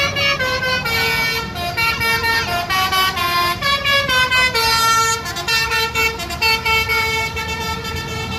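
Basuri telolet horn on an Agra Mas bus playing a melody: held notes stepping up and down, two or three a second, over the low rumble of the bus's engine.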